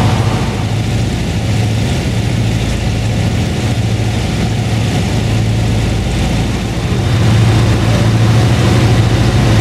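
The radial engines of a Junkers Ju 52 trimotor drone steadily in flight, heard from inside the cabin. The drone grows a little louder about seven seconds in.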